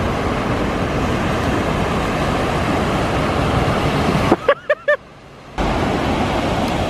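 Wind buffeting the microphone over breaking ocean surf: a loud, steady rush. A little past halfway it cuts out for about a second, and four short high calls are heard in the gap before the rush returns.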